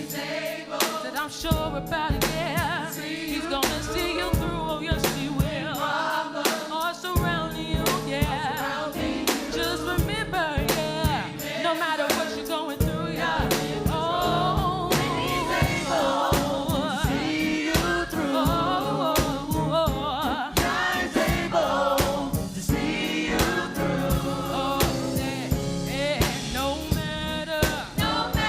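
Gospel choir singing with band accompaniment, with vocal runs that slide and waver in pitch over a steady beat.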